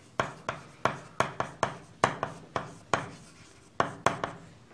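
Chalk writing on a chalkboard: quick, uneven taps and short scrapes, about three a second, as letters are written.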